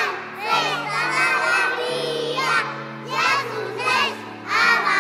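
A group of young children singing loudly together in unison, in rising and falling phrases, over an instrumental accompaniment holding steady low chords.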